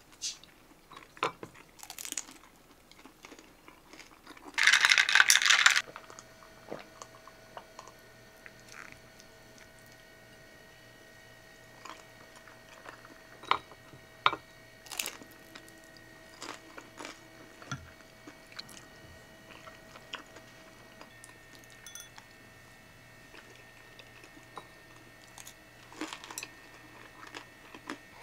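A person chewing and crunching food, with scattered light clicks of utensils and dishes. A loud hissing or rustling noise lasts about a second, some five seconds in, and a faint steady hum follows it.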